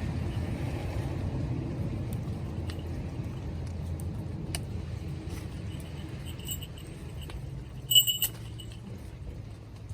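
Sheep bell clinking: a faint ring about six and a half seconds in and a loud, bright clang about eight seconds in. Underneath is a low rumble that slowly fades, with scattered light ticks.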